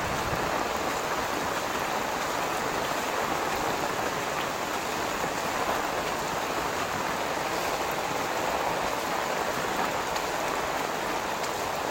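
Rain falling steadily, an even hiss of drops with no let-up.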